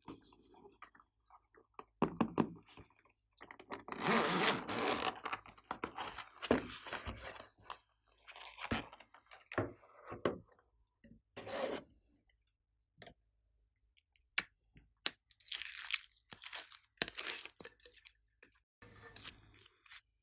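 Glossy slime being worked and mixed by hand: irregular sticky crackling and clicking bursts as it is pressed, folded and pulled apart, densest about four seconds in.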